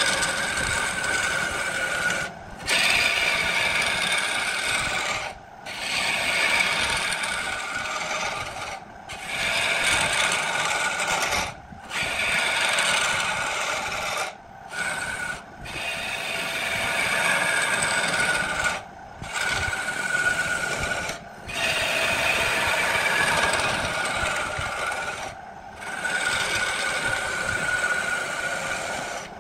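Turning tool cutting spinning wood on a lathe: a continuous shaving, scraping sound in passes of about two to four seconds, broken by about nine short pauses.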